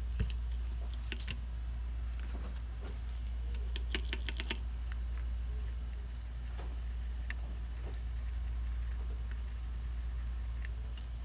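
Scattered light clicks and scratches from a hand rubbing over the solder side of a PS4 power-supply circuit board, with a quick run of clicks about four seconds in, all over a steady low hum.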